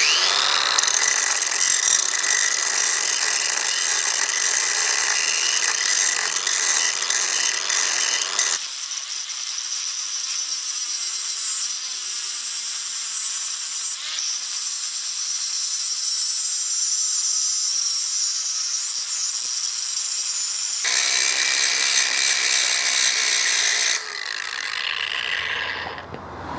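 Ryobi 18-volt cordless 4.5-inch angle grinder running steadily and grinding into a metal pipe, a high whine with the hiss of the disc on steel. For about twelve seconds in the middle the sound is from sped-up footage: it changes abruptly, thinner and higher. Near the end the grinder comes off the pipe and the sound drops away.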